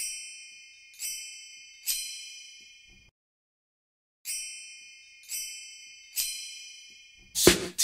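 High, bell-like chime tones, six single dings in two groups of three, each ringing and fading away, with about a second of silence between the groups. A hip hop beat starts near the end.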